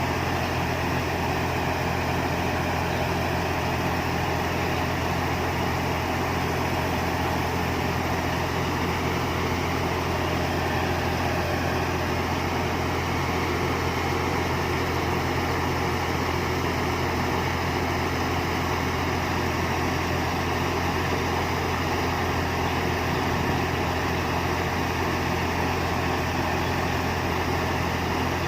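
Combine harvester's diesel engine running steadily at a constant speed, with an even low hum.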